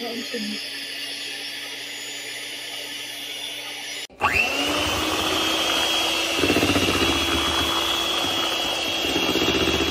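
Imarflex IMX-250 electric hand mixer running with a steady motor hum while its beaters spin freely. About four seconds in, after a brief dropout, a louder run begins: the motor whine rises quickly as it spins up, then holds steady as the beaters churn batter in a bowl.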